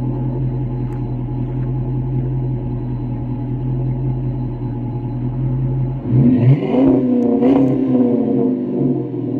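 2007 Dodge Charger R/T's 5.7-litre Hemi V8 through a cat-back exhaust with 40 Series Flowmaster mufflers, idling steadily for about six seconds, then revved: the pitch climbs, holds high for a couple of seconds and drops back toward idle near the end.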